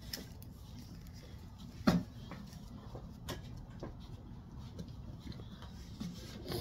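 A loaded barbell shifting on a lifter's shoulders: light clicks and knocks from the bar and plates, with one sharper knock about two seconds in, over a low steady background.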